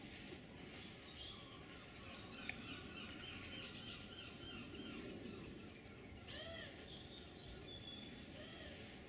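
Small garden birds chirping and trilling, several short calls overlapping, with one louder note that rises and falls just past six seconds. A steady low background rumble runs beneath.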